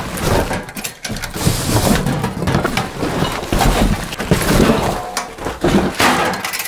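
Cardboard packing box scraping, rustling and crackling as it is pulled away from a Tektronix oscilloscope, with scattered knocks and clatter of the scope's metal case.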